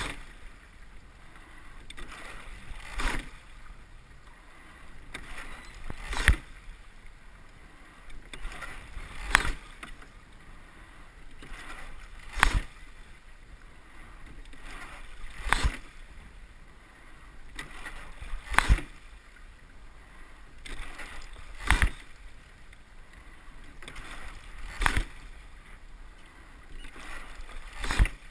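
Single rowing scull at a steady stroke rate of about nineteen strokes a minute: a sharp clack from the oars turning in the oarlocks at each finish, about every three seconds, with water washing along the hull between strokes.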